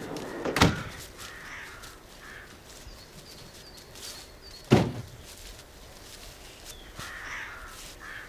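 Birds calling now and then, with two loud thuds about four seconds apart, the first near the start.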